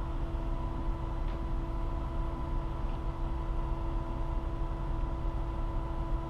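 An engine running steadily at one speed, with a low rumble and a constant hum.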